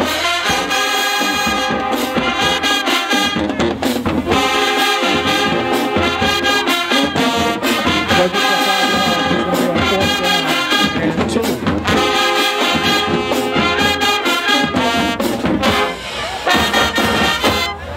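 High school marching band playing a stand tune, with trumpets, trombones and sousaphones over percussion hits. It dips briefly near the end, then plays on.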